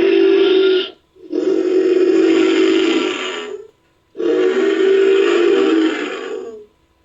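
Designed Hatzegopteryx (giant pterosaur) creature call sound effect: a call that ends about a second in, then two more long calls of about two and a half seconds each, each with a steady low pitch under a harsh rasp and fading at its end.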